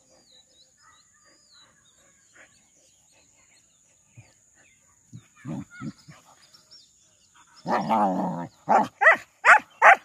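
Saint Bernard and a local dog in rough play, vocalising: two short low growls about halfway in, then a longer, louder growl and a quick run of barks near the end.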